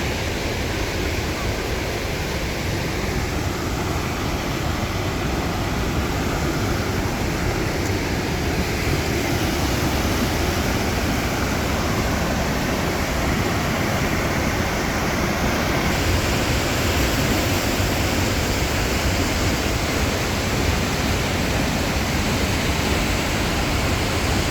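Fast whitewater of the Kicking Horse River rushing through the rock channel at Natural Bridge: a steady, loud, unbroken roar of water.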